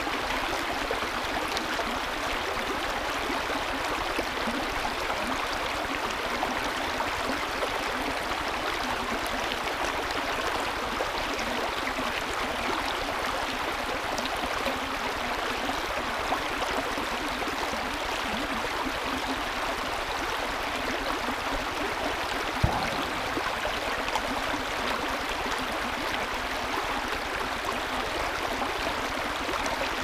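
Shallow, rocky creek rippling steadily over stones in a riffle. One brief knock about two-thirds of the way through.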